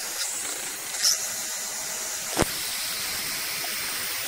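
Mini lathe running with its chuck spinning: a steady, hissing motor-and-gear whir. A brief high squeak comes about a second in, and a single sharp click about two and a half seconds in.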